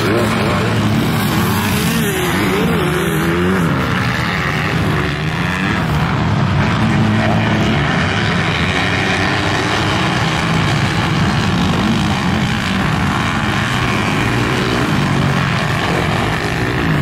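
Motocross bikes racing, their engines revving up and down in pitch as the riders work the throttle and shift, most clearly in the first few seconds.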